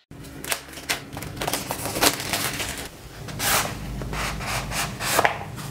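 Cardboard smartwatch box being opened by gloved hands: rubbing and scraping as the inner tray slides out of its sleeve, with scattered small clicks and taps of the card.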